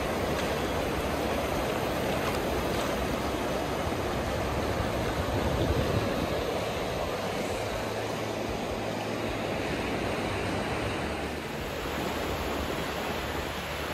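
Gentle surf washing up and drawing back over a sandy beach, a steady wash of water noise that swells a little about halfway through.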